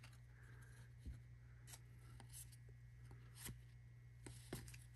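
Near silence, with a few faint ticks and soft rubs of baseball trading cards being handled and slid over one another, over a low steady hum.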